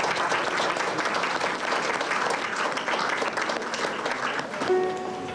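Audience applauding with many hands clapping. Near the end a few clear ringing bell-like tones come in.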